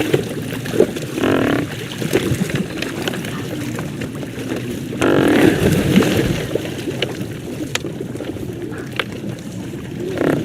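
Great white pelicans giving low calls, two short ones about a second in and about five seconds in, over a steady low background murmur.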